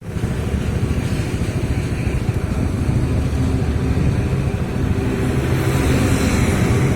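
Hino AK3HR bus's diesel engine running through a modified growling 'ngorok' exhaust: a steady, low, pulsing exhaust note that grows slightly louder.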